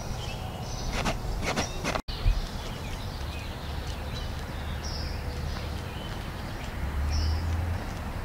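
Backyard ambience: small birds chirping briefly now and then over a low steady rumble, with a few sharp knocks or steps in the first two seconds and a short dropout at about two seconds in.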